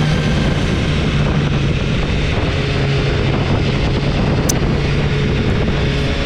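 Motorcycle engine running steadily at an even speed, with a broad rushing noise over it. A tiny click about four and a half seconds in.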